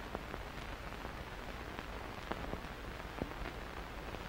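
Hiss and irregular crackle of an old optical film soundtrack: a steady background hiss with a few scattered clicks and pops each second.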